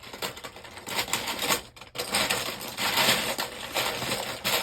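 Small plastic Lego pieces clattering and rattling as a hand rummages through a pile of them, in bursts that swell about three seconds in and again near the end.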